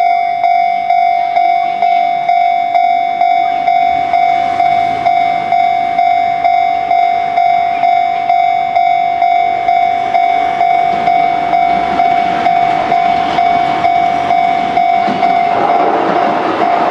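Japanese level-crossing warning bell ringing in a steady repeating pulse, about one and a half strikes a second. Under it, a Shin-Keisei N800 series electric train approaches and passes over the crossing, its wheels on the rails growing louder toward the end.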